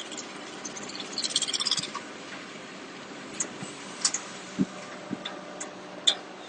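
Hitachi Zaxis 130-1 long-reach excavator's diesel engine running steadily while mud and water pour off its raised duck-bill clamshell bucket. The fall is heard as scattered sharp splashes and a dull thump. A quick rattle of high clicks comes about a second in.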